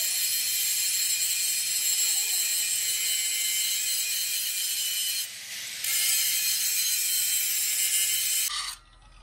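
Large angle grinder's disc grinding into the steel of a truck front axle beam, a steady high-pitched hissing whine. It eases off for under a second about five seconds in, picks up again, then stops sharply near the end.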